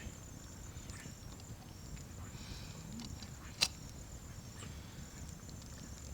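Outdoor ambience: a faint, steady, pulsing high insect chirr over a low rumble, with one sharp click about three and a half seconds in.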